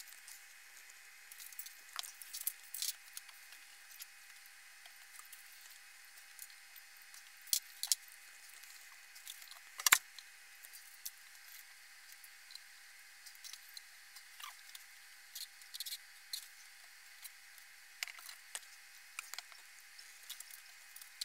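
Light clicks, taps and knocks of wooden crib bars being handled and fitted into a painted wooden rail, scattered and irregular, with one sharper knock about ten seconds in.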